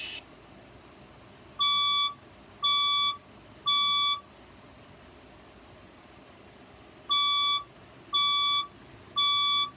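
Fire alarm speaker strobe sounding its evacuation signal: two groups of three half-second beeps, a temporal-3 pattern, with a pause between the groups.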